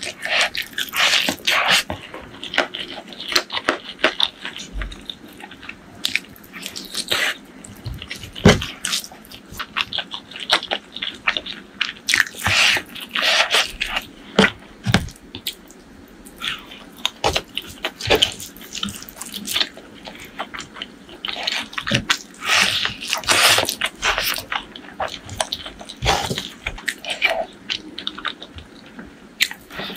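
Close-miked eating sounds: a person chewing mouthfuls of rice with fried onions, with irregular crunches, wet mouth clicks and smacks in clusters.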